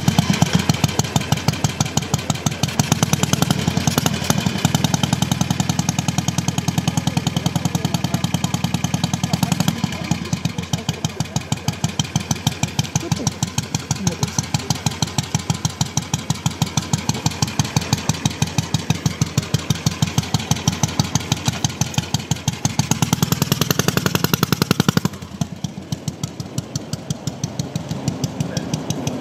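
Royal Enfield Bullet 350's air-cooled long-stroke single-cylinder four-stroke engine running through an aftermarket silencer, each firing heard as a separate exhaust beat. The level drops about 25 seconds in, and the beats carry on more quietly.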